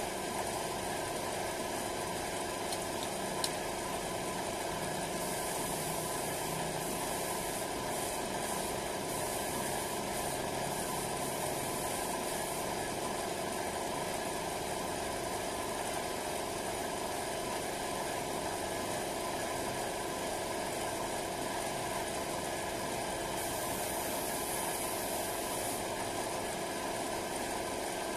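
Air compressor running steadily with an even hum. Spray gun air hisses twice: for several seconds starting about five seconds in, and again a few seconds before the end.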